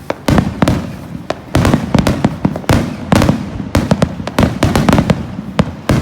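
Fireworks display: a rapid barrage of aerial shells bursting, many sharp bangs a second with echoing rumble between them.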